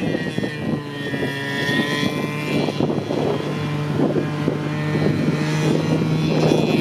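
Snowmobile engine running at a steady pitch as it tows an inflatable banana boat, mixed with irregular rushing and knocking of the boat sliding and bumping over the snow.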